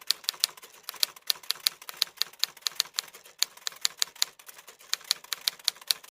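Typewriter keys clacking in a quick, uneven run of sharp clicks, about six or seven a second, that stops abruptly.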